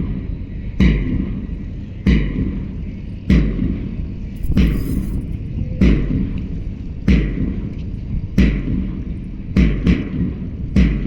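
A person doing dand (Hindu push-ups), a sharp thump on each repetition in a steady rhythm of about one every 1.2 seconds, over a low rumble.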